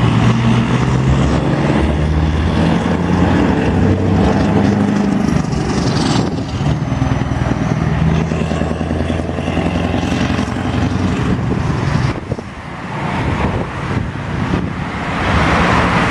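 Scania R500 truck's V8 diesel engine running under way, with road traffic and tyre noise around it. A vehicle rushes past near the end.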